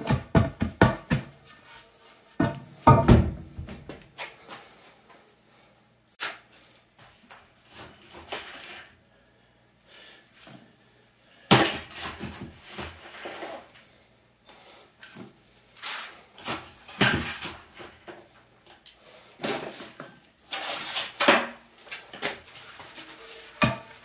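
A 2x4 tamping backfilled dirt in a hole in a concrete floor, with a quick run of knocks and then a heavy thud. After that a hand trowel scrapes and drops soil into the hole in a few short clattering bursts.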